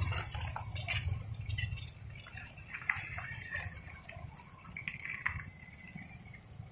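Motorcycles and scooters riding past in a procession, their engines a low rumble. A shrill high-pitched tone sounds twice: about a second in, and louder about four seconds in.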